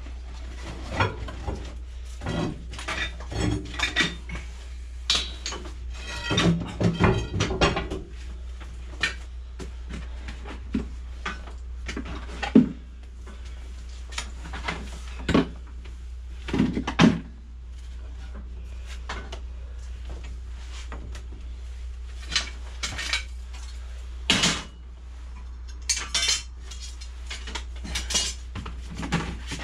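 Metal tools and fittings being handled and moved about: irregular clanks, clinks and knocks, a few louder ones, over a steady low hum.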